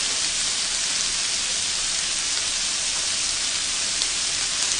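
Thin-sliced pork-wrapped shrimp rolls sizzling on an electric grill plate: a steady hiss with a few faint pops.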